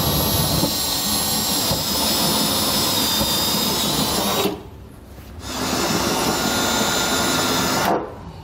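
Cordless drill with a step bit enlarging pilot holes in a pickup truck bed to 9/16 inch: a steady motor whine that stops about four and a half seconds in, then runs again for about two and a half seconds before stopping near the end.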